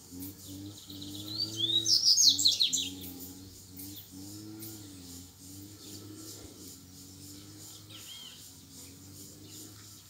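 Double-collared seedeater (coleiro) singing one fast, warbling phrase of high notes, starting about a second in and lasting under two seconds. A faint short call follows near the end.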